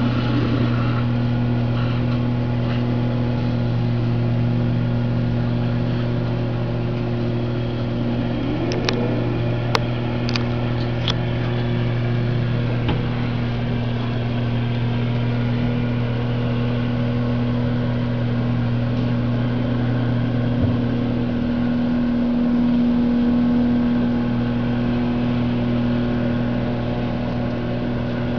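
Boat engine running steadily at a constant speed, with a few faint clicks about nine to eleven seconds in.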